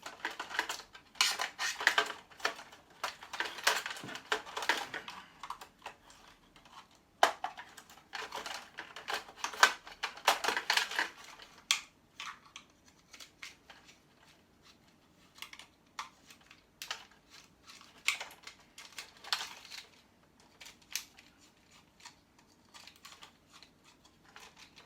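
Electrical switches being taken apart by hand, their small plastic and metal parts clicking and clattering. A busy run of clicks and rattles for about the first eleven seconds, then only scattered single clicks.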